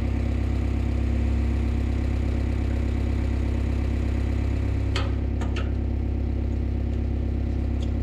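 Skid steer loader's engine idling steadily, with a few light clicks about five seconds in.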